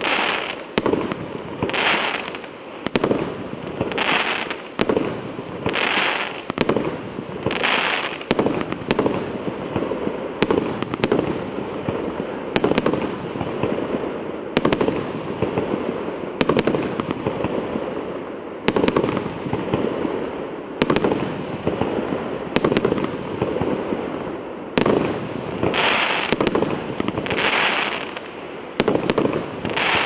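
A 96-shot, 1.2-inch fireworks cake (P7052 'Tsar-Kolokol') firing in quick succession: a steady stream of launch thumps and aerial bursts. Waves of crackling glitter come about every two seconds near the start and again near the end.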